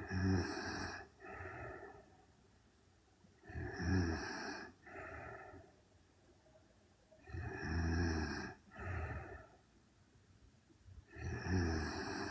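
A 24-year-old woman snoring in her sleep, a snore roughly every four seconds. Each snore is a longer, louder pull followed straight away by a shorter, softer one, four times over.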